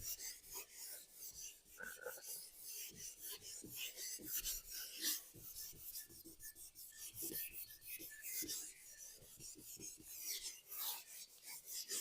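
Someone writing by hand: quick, irregular scratching strokes of a pen on a writing surface.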